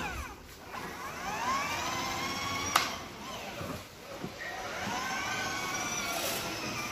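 Electric motors of a child's battery-powered ride-on toy car whining, the pitch rising and falling as the car speeds up and slows down, with one sharp click about halfway through.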